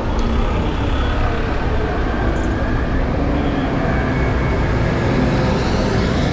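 Steady city traffic noise from buses and trucks running at a busy intersection, heavy at the low end.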